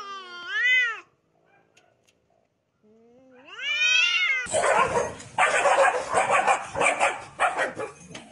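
Two domestic cats caterwauling at each other in a standoff: long, wavering yowls that rise and fall in pitch, one in the first second and another rising about three to four seconds in. From about four and a half seconds in, a loud, harsh, noisy stretch with rapid pulses takes over until just before the end.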